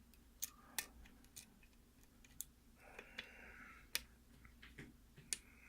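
Faint, scattered clicks of a lock pick working the pins of a Russwin mortise cylinder under tension, with a short scraping rasp about three seconds in.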